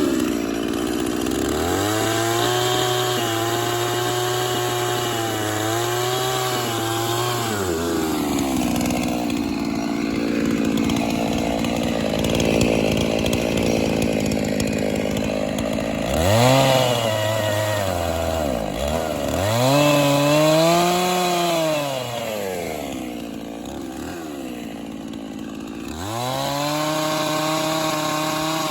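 Large two-stroke chainsaw with a big bar, cutting wood. The engine note rises and falls several times as the throttle is worked and the saw bogs under load, then comes back up to high revs near the end.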